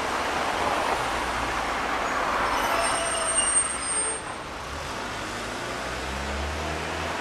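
Hiroden streetcar 1901, a former Kyoto City tram of the 1900 series, running on street track amid road traffic. Midway a high squeal rings out for about two seconds, then the tram settles into a low steady hum as it rolls on.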